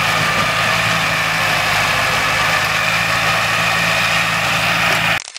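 Engine of a sugarcane grab loader (a cane 'crab') running steadily, with a constant low hum under a loud hissing whir. It cuts off suddenly near the end.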